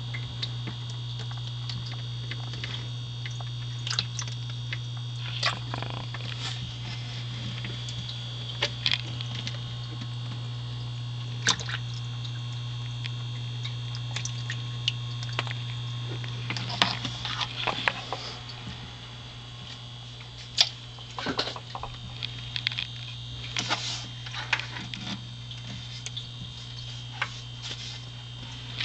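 Frogs and toads lunging at feeder crickets in a terrarium: scattered sharp taps and clicks over a steady low hum, busiest in the second half.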